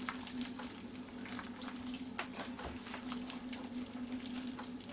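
Hands kneading and squeezing a wet, sticky dough of flour, eggs, butter, oil and milk in a glass bowl: irregular soft squelching and crackling, over a steady low hum.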